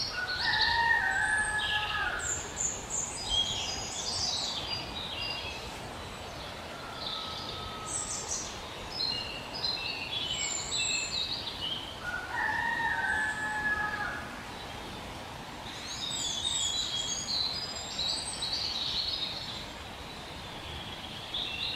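Wild songbirds singing: phrases of clear, varied high notes come every few seconds, the loudest near the start and about halfway through, over a steady low background noise.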